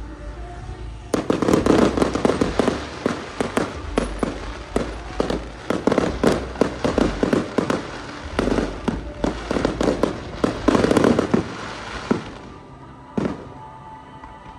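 Aerial fireworks bursting in a rapid, dense barrage of bangs and crackles. About twelve seconds in it thins out to a few separate bangs.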